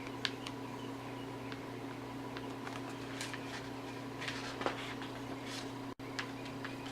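Steady low electrical hum, with a few faint, scattered rustles and taps from the glossy pages of an album photobook being handled and turned. The sound cuts out very briefly about six seconds in.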